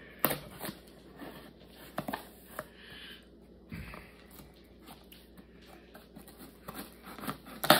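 Pocketknife blade slitting the packing tape along the edge of a cardboard shipping box, with scattered scrapes and taps from hands handling the box and a sharper tap near the end.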